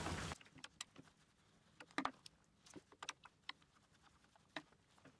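Scattered light clicks and taps as a screwdriver is set into and turned in the screws of an electric impact wrench's plastic housing, with the tool being handled on the bench.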